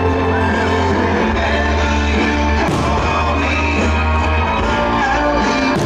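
Rock-style music playing loudly, with a held deep bass note that drops out about four and a half seconds in and two sharp hits, one near three seconds in and one near the end.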